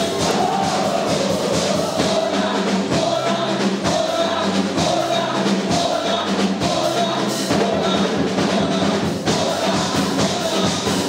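Men's vocal group singing an upbeat gospel song into microphones over a live church band with drums and keyboard.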